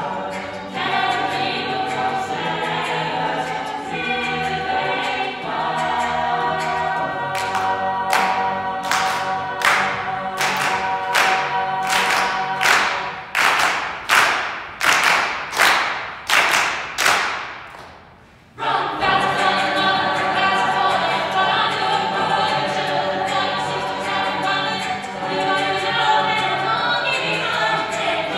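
A cappella group singing in close harmony with a solo voice. About seven seconds in the singers break into steady hand claps, about two a second, growing louder, then the sound falls away for a moment near eighteen seconds before the full group comes back in singing.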